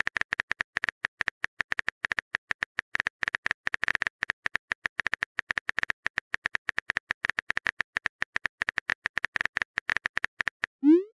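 Typing sound effect: a fast, even run of bright keyboard-style clicks, about ten a second. Near the end comes a short rising swoosh, the sound of a message being sent.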